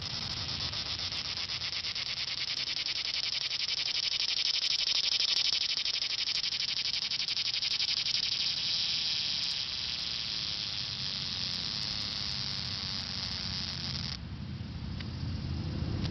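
Cicada singing: a steady, fast-pulsed high buzz that swells in the middle and stops abruptly near the end, over a low rumble.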